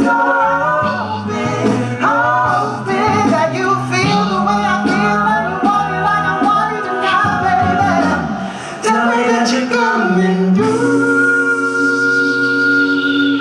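Male a cappella group singing in close harmony over vocal-percussion hits. About ten and a half seconds in they settle on a long held final chord.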